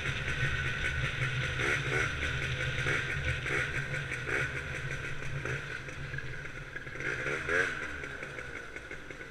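Gilera Runner 172 two-stroke scooter engine running while riding at town speed, its sound easing off toward the end.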